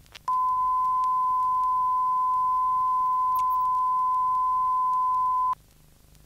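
A steady 1,000 Hz reference tone from a stereo test and calibration tape, played back on a Sony TC-350 reel-to-reel deck. It is recorded 12 decibels below normal level, as the reference for calibrating a level meter. It starts a fraction of a second in and stops cleanly about five seconds later, leaving faint tape hiss.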